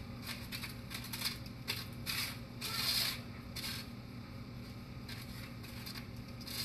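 Kitchen tongs scraping and rubbing fried lumpia through cinnamon sugar on a plate: a run of short, sandy scratching strokes, the longest and loudest about three seconds in, over a steady low hum.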